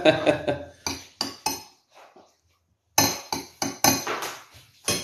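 A metal spoon clinking and scraping against a dinner plate while eating, in a run of sharp strikes, a pause of about a second, then another run of strikes.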